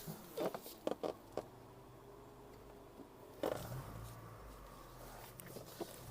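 SUV engine idling low, with a series of sharp knocks and clicks in the first second and a half, another single knock midway and a faint click near the end.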